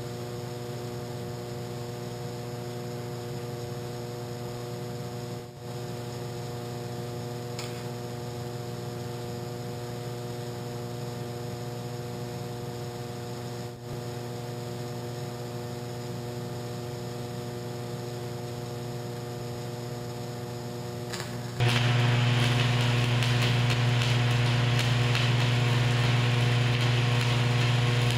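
Century arc welder's transformer humming steadily at idle. About three-quarters of the way through, the arc strikes and stick welding with a 7018 rod begins: a steady crackling sizzle over a louder transformer hum as a hydraulic cylinder's leaking weld is redone.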